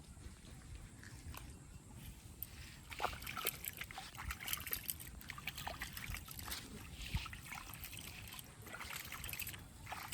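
Shallow muddy water sloshing and trickling, with a run of small, irregular splashes starting about three seconds in.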